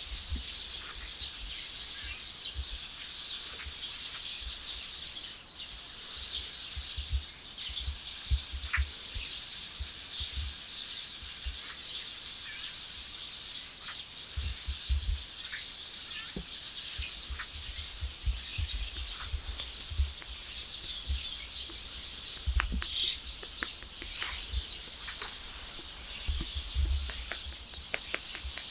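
Outdoor ambience of many birds chirping over a steady, high-pitched background chorus, with repeated low rumbles throughout.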